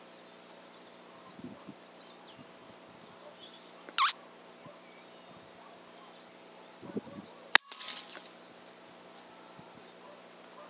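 A single rimfire rifle shot, one sharp crack about seven and a half seconds in. A shorter, quieter sharp sound comes about four seconds in.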